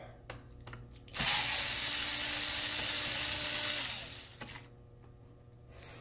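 Small cordless electric screwdriver running steadily for about three seconds, backing a screw out of a laptop's plastic bottom case. It starts sharply about a second in, then winds down and stops, with a few light clicks from handling around it.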